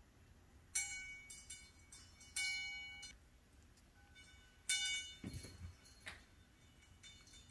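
Stainless steel dog bowl clanking and ringing as a puppy noses at it: three main clanks, each leaving a metallic ring that fades over up to about a second, with a few lighter clinks between.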